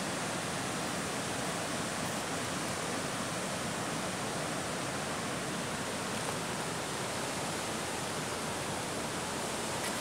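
Steady, even rushing noise with no breaks or changes.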